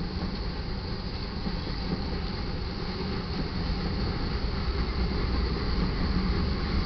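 Iron ore train cars rolling past on the main track: a steady rumble of steel wheels on rail, a little louder in the second half.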